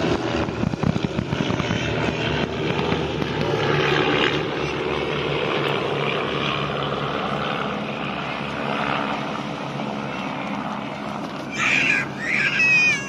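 Propeller engines of a formation of light single-engine aerobatic planes droning as they fly past, the sound slowly fading as they move away. A brief high-pitched cry near the end.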